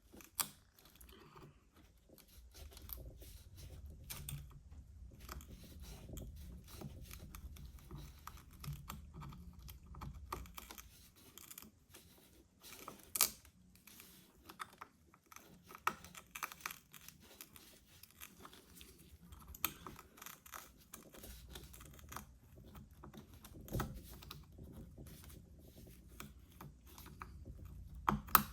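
Prying and scraping at an iPhone SE's back glass with hand tools: irregular small clicks, crunches and scrapes of glass and tool, a few sharper snaps among them. A low steady hum runs underneath for long stretches.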